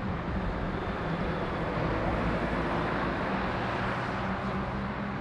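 Scania articulated lorry with a bulk tipper trailer driving round a roundabout and past at close range: a steady diesel engine drone under tyre and road noise that swells in the middle as it passes.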